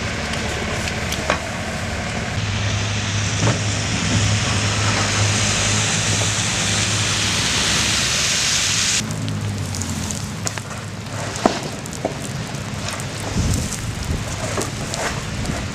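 Motor vehicle running in snowy street traffic: a steady engine hum under a wet, rain-like hiss of tyres on slush. The hiss cuts off abruptly about nine seconds in, leaving a lower rumble and a few scattered clicks.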